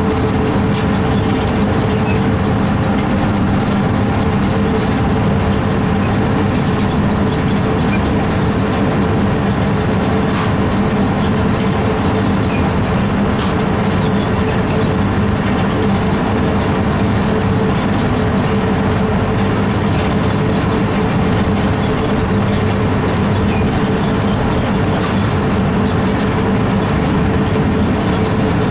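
A train running, heard from inside the locomotive's driver's cab: a steady mechanical hum with a few faint clicks from the wheels on the rails.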